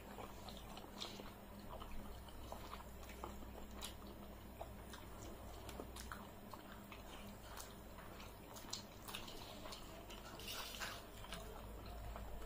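Eating sounds: two people chewing rice and curry with their mouths close to the microphone, with scattered small clicks and crackles from fingers working food on metal plates.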